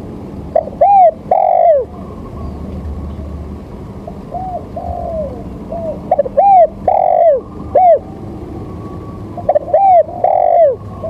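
A bird calling in three phrases of a few short arched notes each, about four seconds apart, over a steady low background hum.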